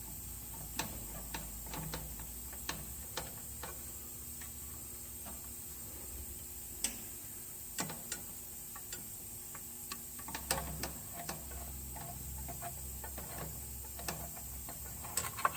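Irregular light clicks and ticks of hand tools and metal parts as screws are taken out of the plate over an old Snapper snowblower's carburettor, with a few louder clicks along the way and a small cluster near the end.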